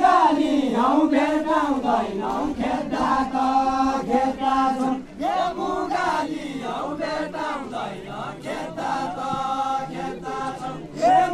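Deuda folk song of far-western Nepal, sung unaccompanied in unison by a line of dancers: long chanted phrases with held notes, and a new phrase starting about five seconds in.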